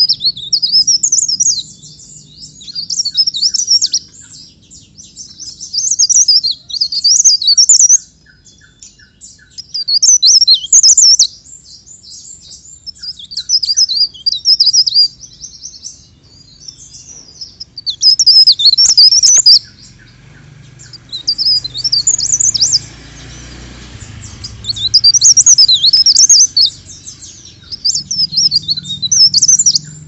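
Cikrak daun songbird singing: rapid, high-pitched twittering phrases of one to two seconds each, repeated again and again with short pauses between.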